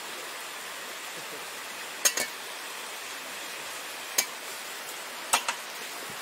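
Hot water poured in a thin steady stream from a camping kettle into a glass mug over a coffee bag. A few sharp clinks break in: two close together about two seconds in, one at about four seconds, and two more near the end.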